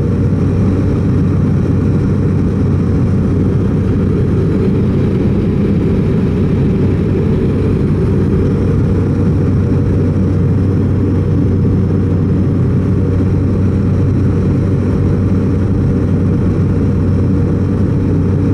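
Jump plane's engine and propeller running as a steady, loud drone heard from inside the cabin, with a strong low hum and no change in pitch.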